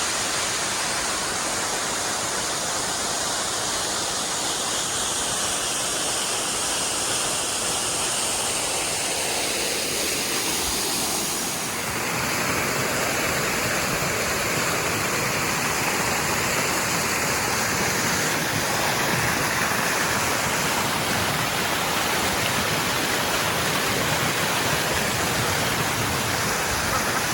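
Waterfall pouring: a steady rush of falling water, its tone shifting slightly about halfway through.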